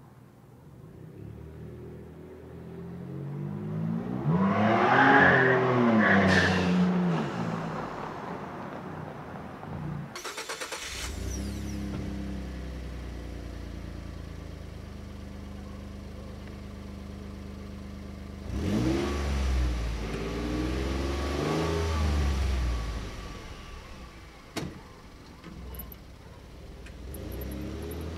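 2013 Ford F-150's 3.5 L twin-turbo EcoBoost V6 exhaust, with a resonator delete and an electric exhaust cutout. It first accelerates past with the cutout open, the engine note rising and then falling over a few seconds. Then, with the cutout closed, there is a brief rapid rattle, a steady idle, two revs about two-thirds of the way through, and the engine building again as the truck pulls away near the end.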